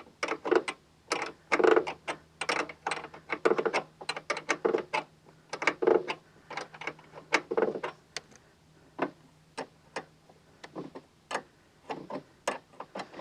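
A ratchet clicking in short, irregular runs with pauses between them as the battery hold-down is tightened.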